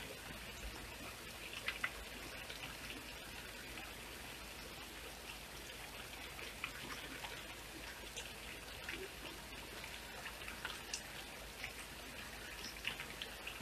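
Steady rain falling on wet ground at night, an even hiss with many individual drops ticking at irregular moments.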